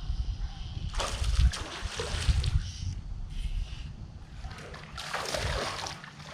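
Water splashing in two stretches, about a second in and again near the end, over a low rumble of wind on the microphone.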